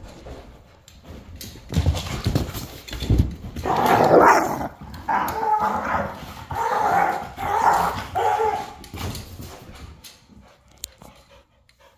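Two dogs play-fighting, barking and giving drawn-out calls from about four to nine seconds in, after a couple of low thumps near the start.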